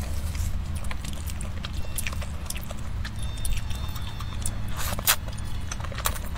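Close-miked chewing and wet mouth sounds from eating spicy noodles, with a longer, louder slurp about five seconds in as a bundle of noodles goes into the mouth. A steady low hum runs underneath.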